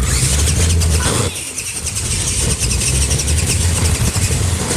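Battery-powered remote-control monster trucks driving, their electric motors and gears whirring, with a low rumble and a rapid fine ticking that dips briefly about a second in.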